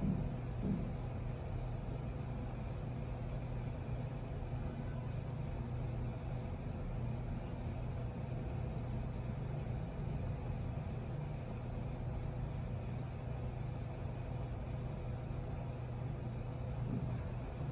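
A steady low machine hum with a faint higher steady tone over it, and a soft thump about a second in.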